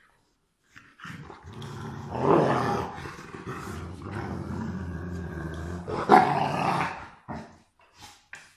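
Rottweilers growling in play while wrestling, one long rumbling growl lasting about six seconds, then a few short sounds near the end.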